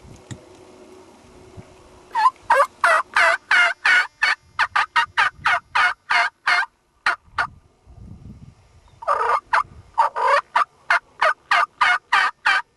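Turkey yelping: a long run of loud, evenly spaced calls, about four a second. It breaks off for about a second and a half past the middle, then resumes in a second run.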